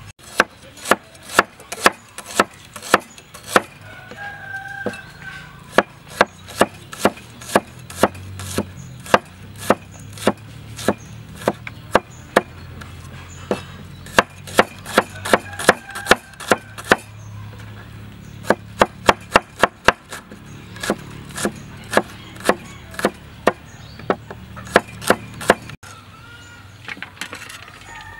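Cleaver chopping shallots on a wooden cutting board: runs of sharp knocks, about two to three a second, with short pauses between runs.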